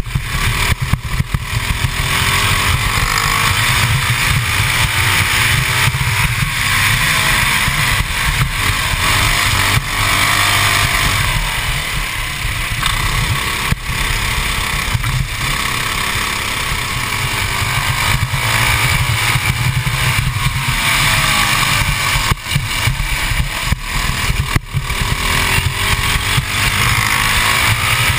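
Modified 24 hp, 196cc Honda GX200 single-cylinder four-stroke kart engine heard onboard under hard driving, its revs climbing and falling several times as the kart accelerates out of corners and lifts off into the next. Heavy wind buffeting on the microphone runs underneath.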